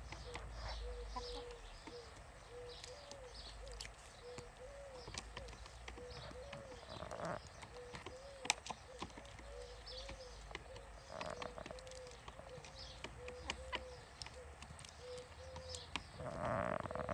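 A group of hens making a steady run of soft, low clucks, two or three a second, mixed with sharp taps of their beaks pecking sunflower seeds from a plastic tray of water. A louder, harsher hen call breaks in a few times, most strongly near the end.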